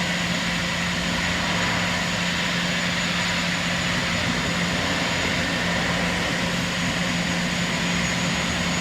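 Metro train running with a steady hum and a thin high-pitched whine, even throughout.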